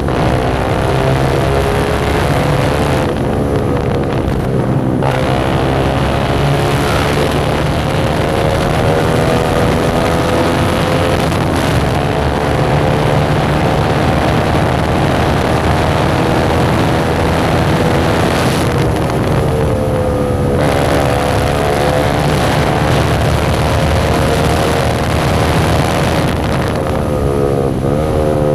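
Single-cylinder motorcycle engine running with no exhaust silencer, loud and raw while riding. The pitch climbs steadily under throttle and falls away twice as the throttle closes, about three seconds in and again about two-thirds of the way through, then climbs again each time.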